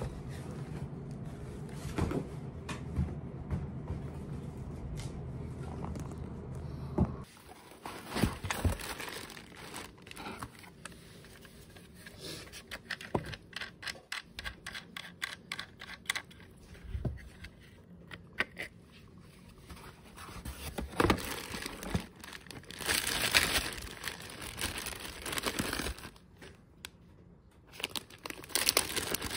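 Plastic packaging crinkling and rustling, with scattered clicks and knocks of parts being handled in a cardboard box while a cordless mini chainsaw is unpacked. The crinkling comes in louder bursts in the second half and near the end. A steady low hum under the first seven seconds stops abruptly.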